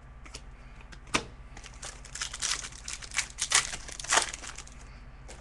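Hockey card pack wrapper crinkling and tearing as a pack is ripped open, a string of sharp crackles from about a second in until about four seconds in.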